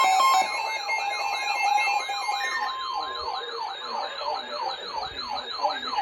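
Electronic siren sounding in rapid up-and-down sweeps, about two and a half a second. It is layered at first with steady and beeping tones that drop out in the first half.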